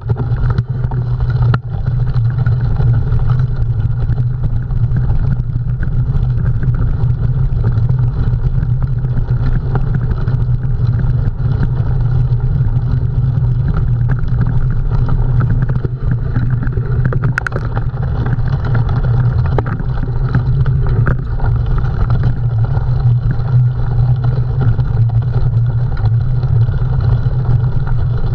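Steady rumble of a cyclocross bike racing over the course, with occasional short clicks and rattles.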